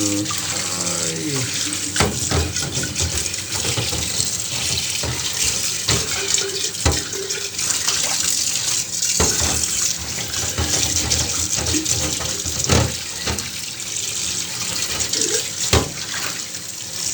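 Tap water running into a sink as a ceramic teapot is rinsed free of baking-soda paste, with occasional knocks of the pot against the sink or tap.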